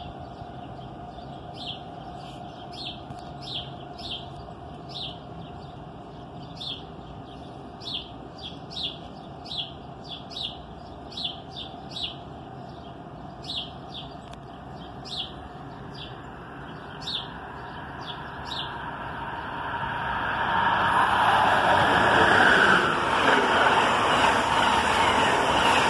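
A bird chirps over and over with short falling calls. About three-quarters of the way in, the steady rush of an Amtrak Northeast Regional passenger train passing through the station at speed swells up and stays loud.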